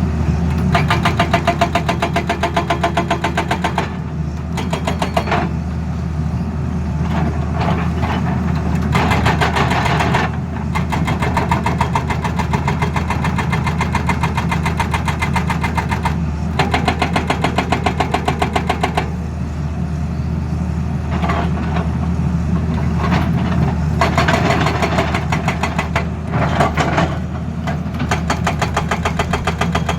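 Excavator-mounted hydraulic breaker hammering in bursts of rapid, evenly spaced blows, stopping and restarting every few seconds, over the steady running of the excavator's diesel engine.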